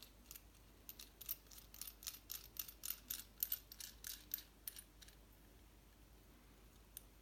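Faint light clicks and ticks, about four or five a second, as the parts of an E3D-style 3D-printer hot end (finned aluminium heatsink, heater block and nozzle) are handled and turned in the fingers. The clicks stop about five seconds in, and one more comes near the end.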